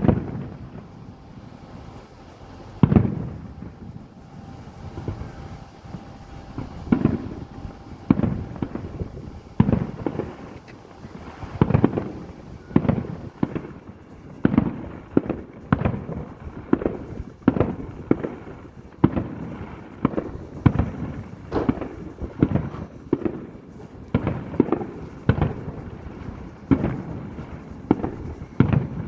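Aerial fireworks bursting in a steady barrage: a few booms in the first dozen seconds, then one or two booms a second, each with a short echoing tail.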